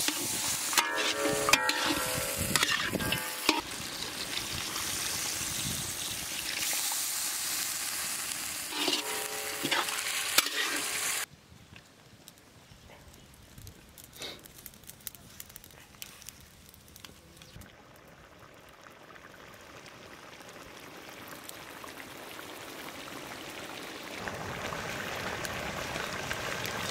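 Chicken frying and sizzling in a large iron kadai, stirred and scraped with a metal spatula. About eleven seconds in it cuts off abruptly to a much quieter outdoor stretch, and a faint hiss slowly grows louder toward the end.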